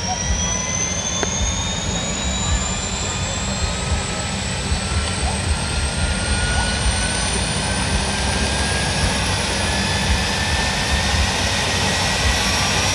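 Turbine helicopter running close by: a high turbine whine climbs slowly and steadily in pitch over the continuous low beat of the rotor blades, as the engine spools up.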